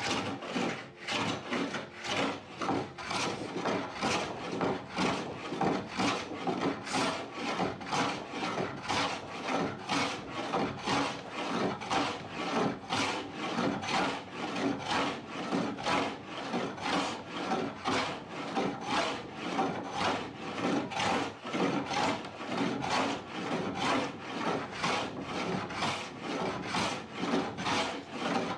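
A hand tool rasping over the wood of a door in quick, even back-and-forth strokes, about two to three a second, as material is taken off a surface that is being worked against the grain.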